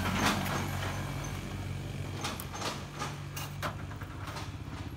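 A motor vehicle engine running with a steady low hum, with several sharp clicks in the second half.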